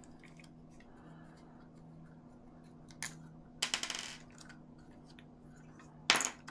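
Small metallic clicks and clinks from taking a screw out of an RC car's plastic chassis: one click about three seconds in, a short rattle just after, and a sharper clink near the end, over a faint steady hum.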